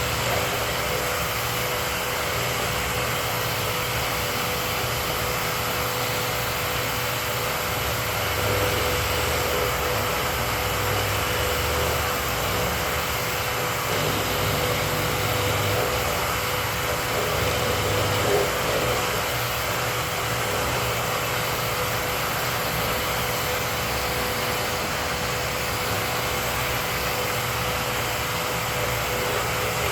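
Dust-collection vacuum running steadily, a constant rushing noise with a steady hum.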